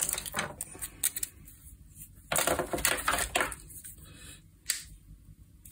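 Hands handling a wire on a workbench: a few light clicks and taps, with a longer burst of rustling and clatter about two and a half seconds in.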